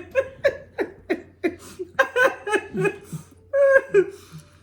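A woman laughing hard in a run of short, quick pulses, about three a second, ending in a couple of longer falling laughs.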